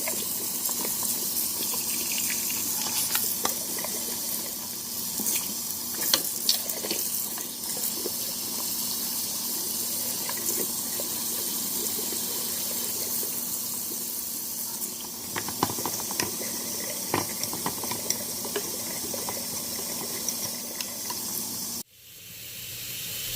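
Kitchen tap running steadily, the water flushing through a dishwasher part into the sink, with a few light clicks and knocks. The sound cuts off abruptly near the end.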